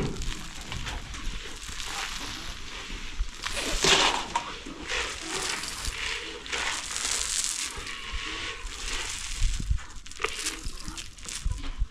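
Dry maize grains poured and scattered on the ground, a run of rustling, crunching hiss that comes and goes in patches.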